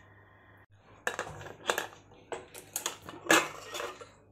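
Stainless-steel pressure cooker lid being twisted open and lifted off the pot: a quick run of metal clinks and scrapes against the rim, starting about a second in.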